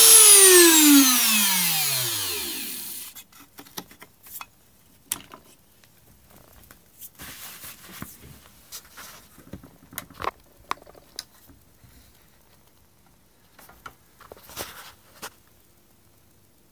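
Dremel rotary tool in a drill-press rig spinning down after being switched off: its high motor whine falls steadily in pitch over about three seconds until it stops. Scattered light clicks and taps follow.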